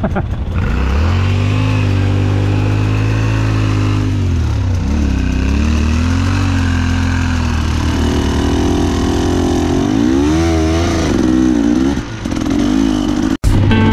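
Enduro motorcycle engine running under way, its pitch rising and falling as the throttle is worked. Near the end the sound cuts off abruptly and music begins.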